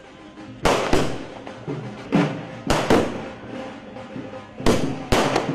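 Firecrackers going off on the ground in a string of sharp bangs, about eight in all, some coming in quick pairs, with music playing underneath.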